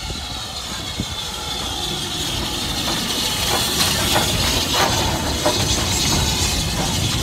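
BR Standard Class 4 4-6-0 steam locomotive No. 75014 'Braveheart' running slowly past at close range. Steam hisses, getting louder as it nears, with a few clanks from the wheels and motion around the middle.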